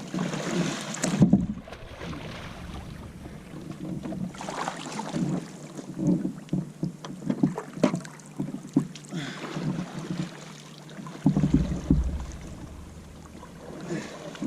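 Water splashing and sloshing, with irregular knocks against the plastic hull of a sit-on-top fishing kayak, as a swimmer climbs back aboard from the water. Wind rumbles on the microphone at times.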